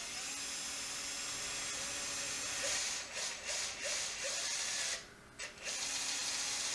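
Cordless drill with a step drill bit boring a hole through a lid, the motor running steadily. It stops briefly about five seconds in, then starts again.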